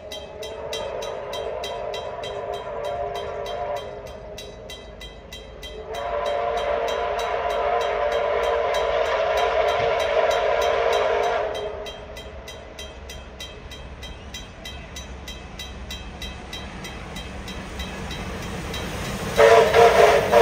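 Victorian Railways R class 4-6-4 steam locomotive R766 sounding its whistle, several notes at once, in three blasts: one of about four seconds, a longer one of about five seconds, and a short, louder one near the end as the engine comes close.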